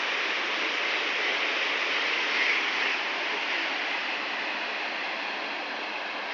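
A steady rushing noise with no distinct tones or knocks, easing slightly after the middle.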